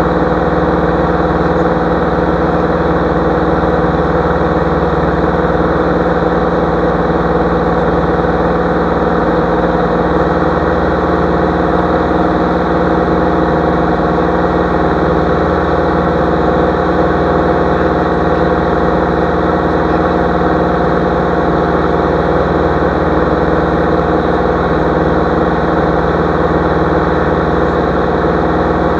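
Single-engine light aircraft's engine and propeller in level flight, heard from inside the cockpit: a steady, unchanging drone with no change in power.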